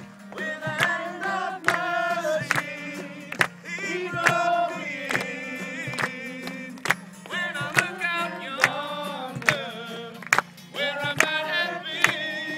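A group of men and women singing a worship song to an acoustic guitar, with handclapping on the beat, about two claps a second.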